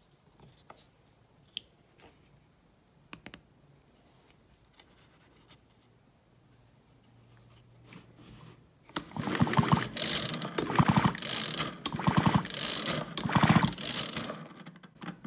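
Poulan Woodshark two-stroke chainsaw's recoil starter rope pulled several times in quick succession from about nine seconds in, the engine spinning over with a rapid ratcheting clatter and the spark plug out of the cylinder for a spark test. A few faint clicks come before the pulls.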